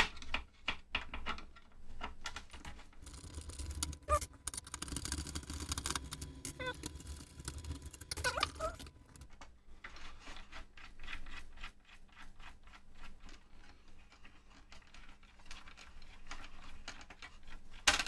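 Small screws being undone and taken out of a metal shield panel inside an electronic instrument: a run of light clicks and taps from the screwdriver and screws, with a few short squeaks around the middle.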